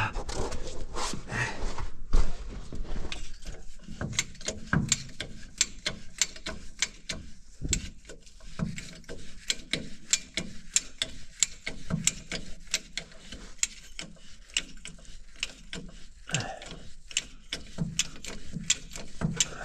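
Hand ratchet wrench clicking in quick, repeated strokes on a bolt under the truck, with a few dull metal knocks in between.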